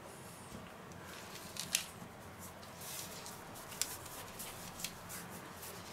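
Hands pressing and gathering cookie dough scraps together on a silicone baking mat: faint rubbing and rustling, with a few short soft clicks, the sharpest a little under two seconds in.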